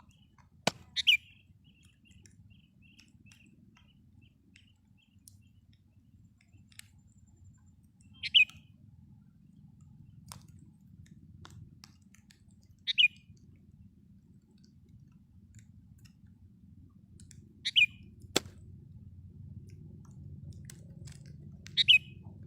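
Sooty-headed bulbul giving short, sharp calls, five in all, one every four to five seconds, with faint softer chirps in the first few seconds. Two sharp clicks, one just before the first call and one late on.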